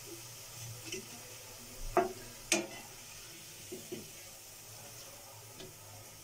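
Potato chips frying in hot oil in a wok with a steady low sizzle, while a steel slotted spatula turns and lifts them, scraping and clicking against the pan. Two sharper clacks of the spatula about two seconds in are the loudest sounds, with a few lighter taps later.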